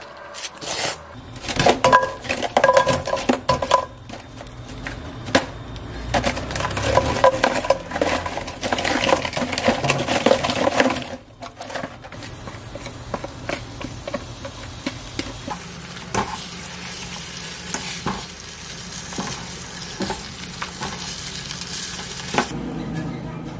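Food sizzling in a pan while being stirred and scraped with a utensil, with clinks of cookware. The stirring stops about eleven seconds in, leaving a quieter sizzle with occasional clicks.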